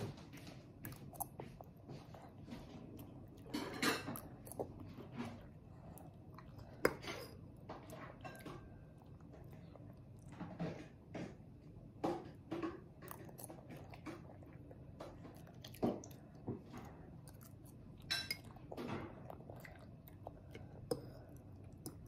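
A toddler chewing spaghetti with meat sauce, with scattered short sharp sounds of a fork knocking against the bowl.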